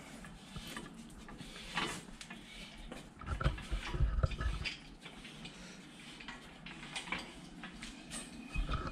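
Light metallic clinks and rattles of a hand tool and chain hardware on an engine support bar as it is being unfastened, with a cluster of dull thumps about three to five seconds in.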